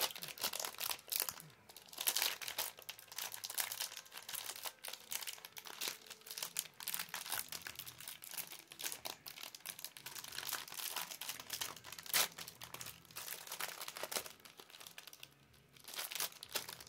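Packet of ginger biscuits being opened by hand: the wrapper crinkles and crackles irregularly, with a short lull near the end.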